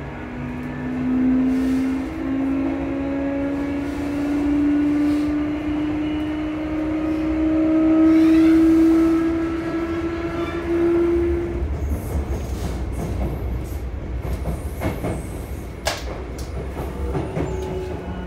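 A Sotetsu 8000 series train's Hitachi IGBT VVVF inverter and traction motors whine in a steadily rising tone as the train accelerates, heard from inside the car. About eleven seconds in the whine cuts off and the train coasts with wheel-on-rail rumble and clicks over rail joints. Near the end an inverter tone starts again.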